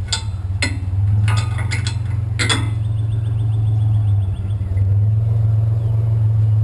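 Truck engine idling steadily, with several sharp metal knocks and clanks in the first two and a half seconds as a load of scrap is strapped down with a bungee cord.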